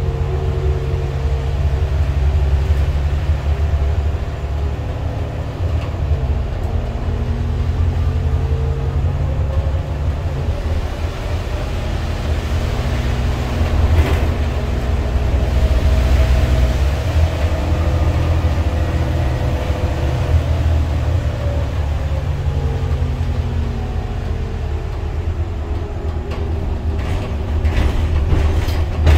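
Interior sound of an Irisbus Citelis 12 city bus under way: the Iveco Cursor 8 diesel engine's low drone through the Voith automatic gearbox, its pitch sliding down and up several times as the bus slows and accelerates, over road and body noise. It grows louder for a few seconds midway, and a few light clicks come near the end.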